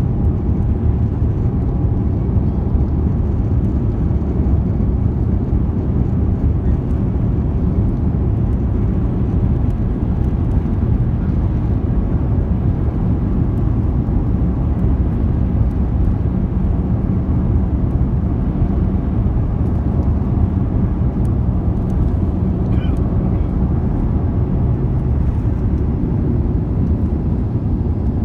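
Cabin noise inside an Airbus A350-900 airliner: the steady low rumble of its Rolls-Royce Trent XWB engines and airframe, holding an even level throughout.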